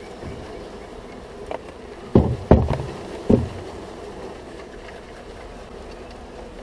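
Honeybees buzzing steadily as a package of bees is emptied into a top bar hive, agitated by being shaken out. About two seconds in, three loud thumps, the first two close together, as the wooden-framed bee package is knocked against the hive to dislodge the bees.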